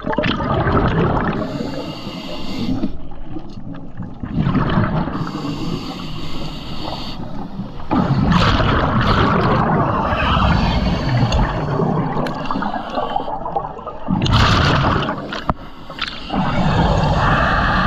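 A scuba diver breathing on a regulator underwater. Short hissing inhalations, roughly every few seconds, alternate with longer rumbling, gurgling rushes of exhaled bubbles.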